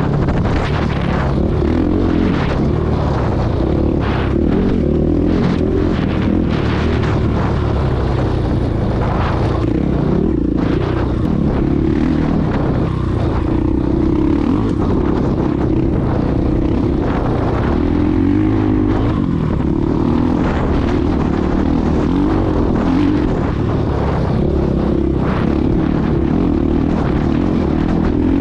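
KTM 450 EXC-F's single-cylinder four-stroke engine running under way on a dirt trail, its pitch rising and falling as the throttle opens and closes.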